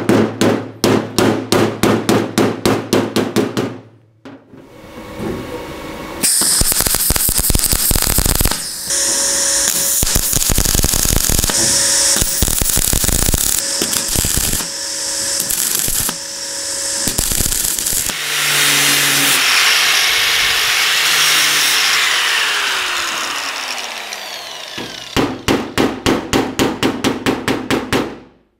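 Hand hammer beating on steel sheet at about five blows a second, then MIG welding crackling in several short runs and a longer stretch, then rapid hammering again on the freshly welded spot of the truck door panel.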